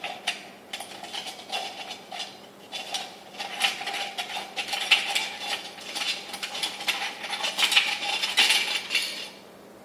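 Glass pendant lampshade being unscrewed by hand from its metal socket fitting: a run of small scraping, clinking sounds of metal grating against glass, which stops just before the end.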